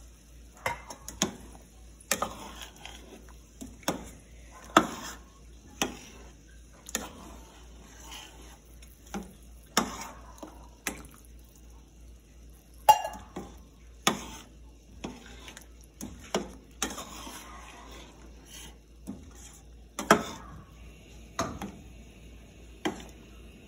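Metal ladle stirring a thick coconut-milk chicken stew in a stainless-steel pot, knocking against the pot roughly once a second at uneven intervals.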